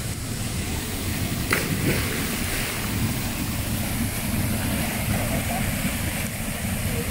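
Steady rush of a small waterfall pouring into a river pool, with wind buffeting the microphone. A sharp splash about a second and a half in, then continued splashing of a swimmer in the water.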